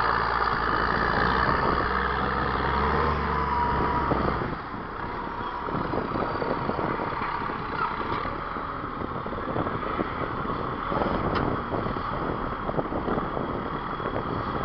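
Case W20C wheel loader's diesel engine running as the loaded machine drives in. About four seconds in, the steady low engine hum drops away, and the engine runs on quieter and rougher, with a light rattling clatter.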